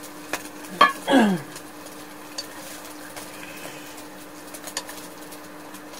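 Frying-pan cooking sounds: a few sharp utensil clicks and a short vocal sound falling in pitch about a second in, over a steady low hum.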